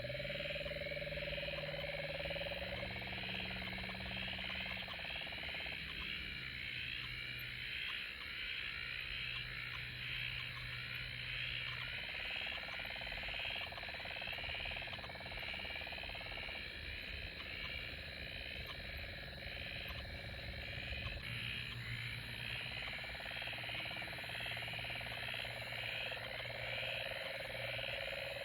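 Night chorus of frogs and insects: a dense, evenly pulsing trill throughout, with steady low humming tones underneath that hold for a few seconds at a time and then change pitch or drop out.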